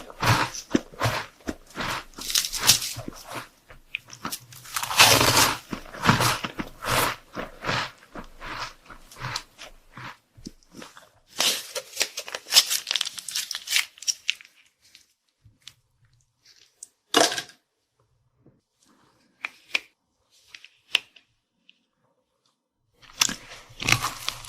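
Close-miked eating sounds: crisp crunching and chewing of crunchy chocolate snacks, in bursts of bites. It thins to a few soft clicks in the middle, and the crunching picks up again near the end.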